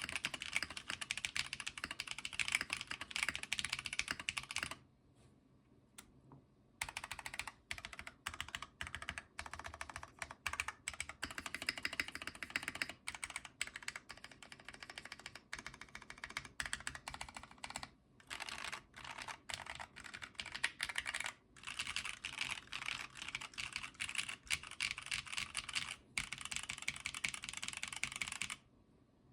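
Typing on a custom mechanical keyboard with Cherry MX Red linear switches in an aluminium top-mount plate, fast runs of keystrokes broken by short pauses, with a full stop of about two seconds around five seconds in and again near the end.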